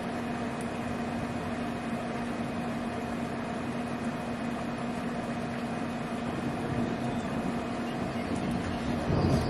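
A steady low hum over an even hiss, and near the end thunder begins to rumble.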